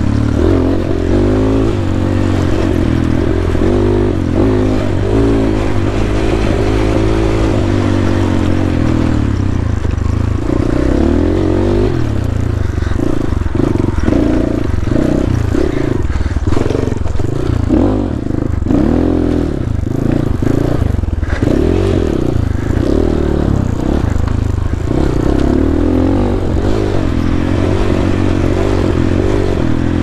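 250cc single-cylinder four-stroke dirt bike engine (GPX Moto FSE 250) running under riding load, its revs rising and falling with the throttle. The throttle work is choppy in the middle stretch and steadier near the start and end, with some clatter from the bike over rough trail.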